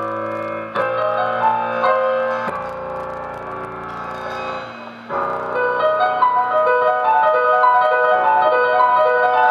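Stage keyboard playing a piano part on its own: held chords that fade a little, then about five seconds in, a louder, quick figure of short repeated notes in a steady rhythm.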